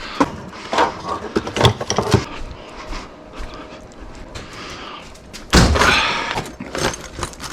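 Light clicks and knocks of hand tools and parts being handled, then one loud clattering bang about five and a half seconds in that dies away over a second.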